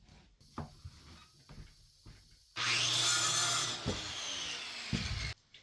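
A few light knocks and taps on wood, then a power saw cutting through wood for nearly three seconds with a steady hum under the cut, which stops abruptly.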